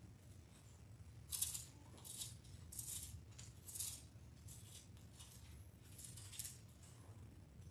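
Thin Bible pages being leafed through by hand: a series of short, faint papery rustles, each page turn about a second apart.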